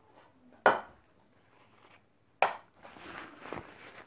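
A plastic scraper and plastic mixing bowl being handled while lemon cream is scraped into a piping bag: two sharp knocks, one under a second in and one about two and a half seconds in, then about a second of scraping and rustling.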